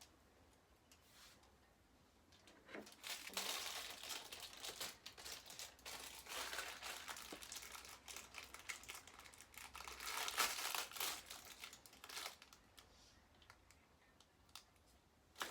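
Plastic and foil wrapping of an LOL Surprise toy crinkling and tearing as it is unwrapped, in irregular stretches starting about three seconds in and stopping a few seconds before the end.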